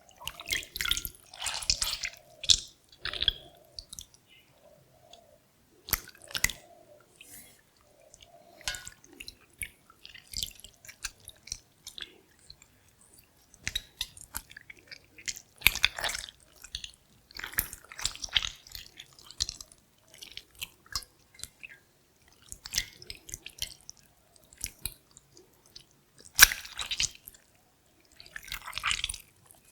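Wet squelching and sticky slurping of a slimy kombucha SCOBY being handled, in irregular short bursts with brief pauses between.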